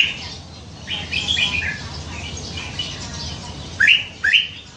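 Red-whiskered bulbul singing: a short rising note, a warbled phrase about a second in, then two quick upward-sweeping notes near the end.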